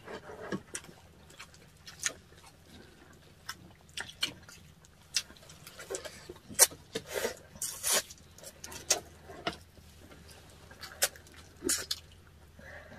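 Close-up mouth sounds of eating salmon-head sinigang: irregular wet smacks and sharp clicks of chewing, with a few longer wet sounds around the middle.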